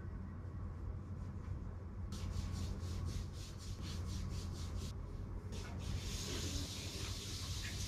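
Hands rubbing briskly over skin in a massage, about five quick strokes a second for a few seconds, over a steady low hum; a steady hiss takes over near the end.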